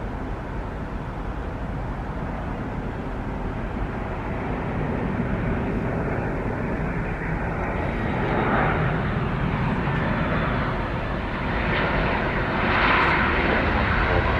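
Airliner's jet engines running as the aircraft passes, a steady rushing rumble that grows gradually louder.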